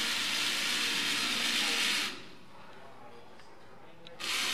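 Small electric drive motors of a wall-climbing robot running in short bursts as it drives across a steel sheet: a steady high hiss that stops about two seconds in and starts again near the end.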